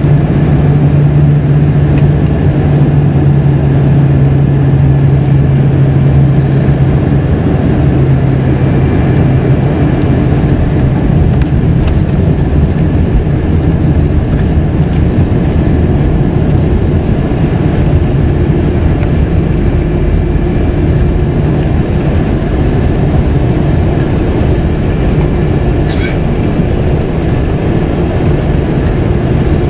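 Cabin noise of a Boeing 747-400 rolling on the ground after landing: a steady rumble from its General Electric CF6 engines and airflow. A low hum fades out about seven seconds in.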